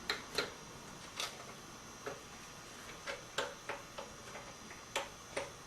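About ten light, irregularly spaced clicks and taps of the knife sharpening guide assembly being seated and fitted into the T-slots of a Work Sharp 2000 sharpener.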